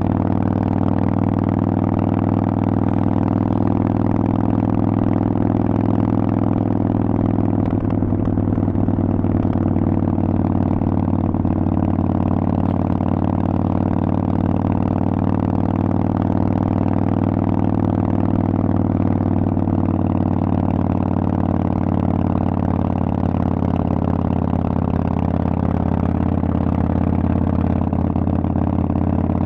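Harley-Davidson Sportster Forty-Eight's 1200 cc air-cooled V-twin running through Vance & Hines exhaust pipes at a near-constant engine speed, with a slight dip in pitch about two-thirds of the way through.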